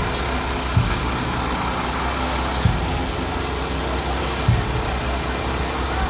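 An engine running steadily at idle with a low hum, over which comes a dull low thump every one to two seconds.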